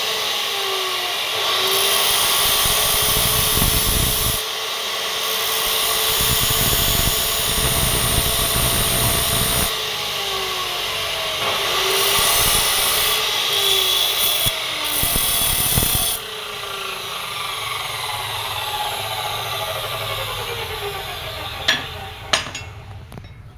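Makita abrasive cut-off saw running while a brake pad is pressed against the side of its spinning disc in spells, grinding with a harsh hiss, the motor's pitch dipping under the load. About 16 s in the grinding stops and the motor winds down, its pitch falling; two sharp clicks near the end.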